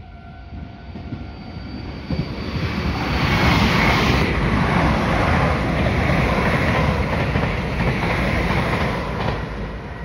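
Meitetsu electric train passing close by, its wheels clattering over the rail joints and its running gear rumbling: it builds from about two seconds in, stays loud through the middle and eases off near the end. At the start a level-crossing warning signal rings steadily, then fades under the train.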